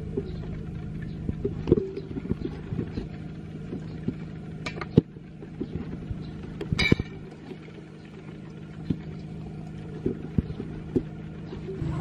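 Wooden spatula knocking and scraping against a stainless steel mixing bowl as a salad is tossed: a dozen or so scattered sharp knocks, over a steady low hum.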